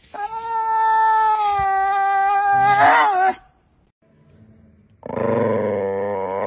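A German Shepherd gives a long, high, steady whine that bends and breaks off after about three seconds. After a short pause, a bull terrier starts a low, wavering vocal sound, its 'talking' that seems to ask for translation.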